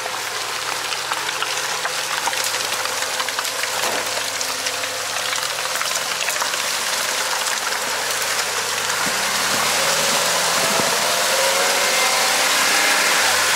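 Off-road vehicle engine running at low revs while crawling over rough ground, under a steady hiss with scattered crackles, growing louder near the end.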